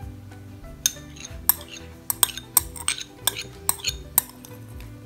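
Metal spoon clinking and tapping against a ceramic cup, about a dozen sharp, irregular clinks, as oil mixed with food colouring is scraped out into a glass of water.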